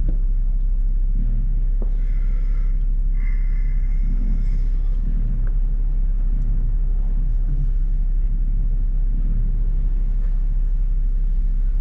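Jeep engine and drivetrain running with a steady low rumble as the vehicle crawls along a rocky dirt trail.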